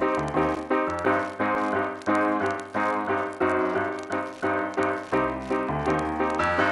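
Piano music: a run of notes struck about twice a second, each fading after its attack.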